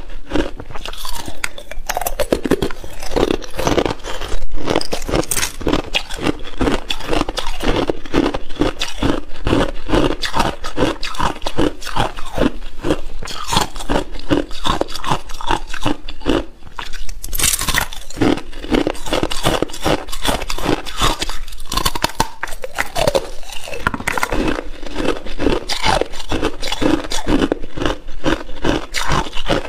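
Thin clear ice being bitten and chewed close to a lapel microphone: a continuous run of crisp crunches and cracks, several a second.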